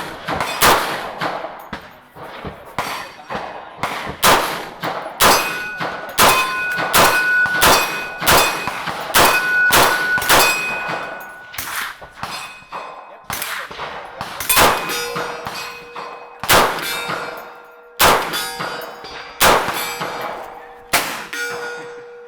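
A string of gunshots, roughly one or two a second, with steel targets clanging and ringing after the hits.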